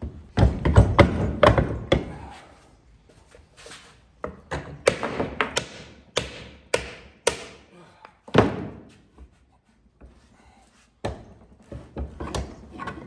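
A run of knocks and clunks from the cast-iron parts of a Chas Parker 288½ bench vise being fitted together, as the movable jaw's square slide is pushed into the body. The knocks come in clusters, with a single heavier clunk a little past halfway.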